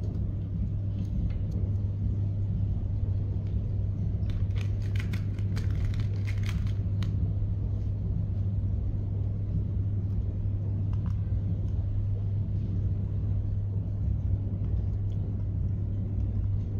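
Steady low hum and rumble at a constant level, with a few faint clicks about four to seven seconds in.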